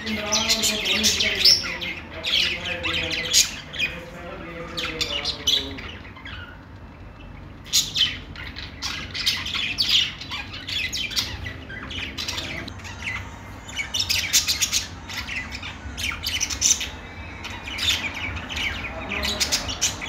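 A flock of caged budgerigars chirping and squawking in quick overlapping bursts, easing off briefly a couple of times around the middle.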